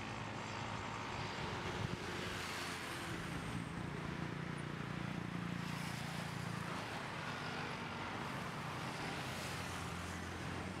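Road traffic: a small angkot minibus van drives up and stops, its engine then idling with a steady hum, while motorcycles go by a few times.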